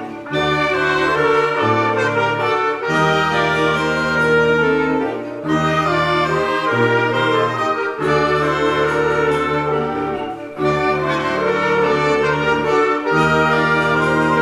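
Youth wind band playing a loud, full passage with the brass section prominent: sustained chords over a changing bass line, in phrases broken by short gaps about every two and a half seconds.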